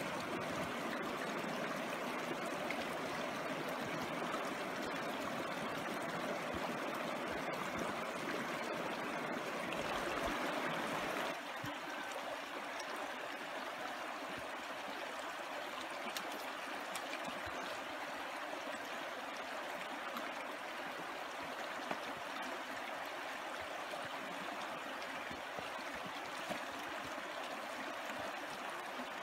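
Small rocky creek running, a steady rush and babble of water; it turns a little quieter about eleven seconds in.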